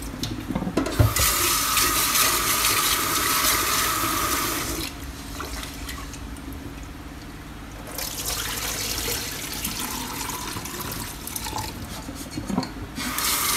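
Rice being washed in a rice-cooker pot over a stainless steel sink: water splashing into the sink as the cloudy rinse water is poured off, a quieter stretch in the middle while the rice is swished by hand in the water, then splashing again. A knock about a second in.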